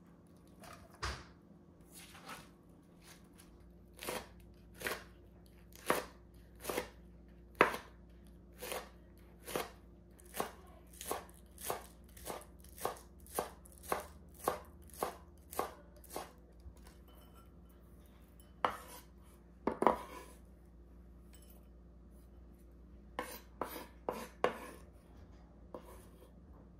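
Chef's knife chopping green chili peppers on a bamboo cutting board: a steady run of knife strikes on the wood that grows quicker, then a few louder knocks in the middle and a quick cluster of taps near the end.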